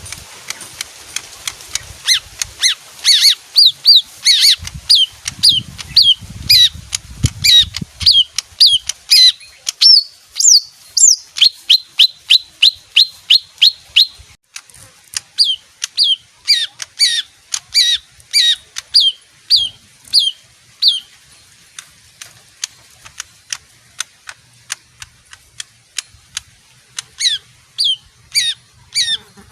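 A leafbird singing: a long series of sharp, high, downward-sweeping notes at about two a second, some rising higher for a moment, pausing for several seconds in the later part and starting again near the end.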